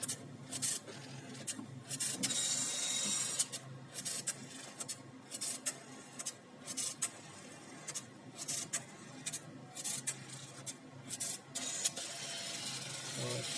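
HP printer running a test print: a series of short mechanical whirs and clicks, with longer passes of the print mechanism about two seconds in and again near the end.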